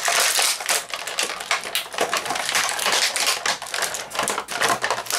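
Thin clear plastic wrapping crinkling and crackling as an action figure is worked out of it: a continuous run of small, sharp crackles.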